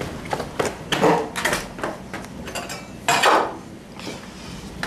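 A door being shut: a series of short knocks and clicks from the door and its latch, with a longer rushing scrape about three seconds in.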